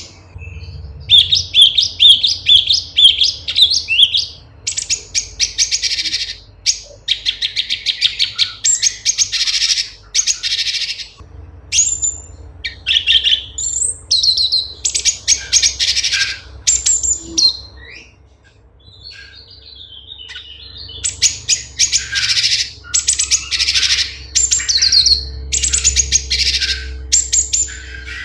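Cucak cungkok, a leafbird, singing: loud phrases of rapid, high chattering notes, each a second or two long with short gaps between them, and a softer, quieter stretch about two-thirds of the way through.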